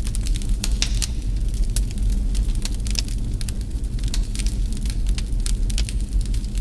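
Wood fire burning in a fireplace, crackling with frequent sharp pops at irregular intervals over a low steady rumble.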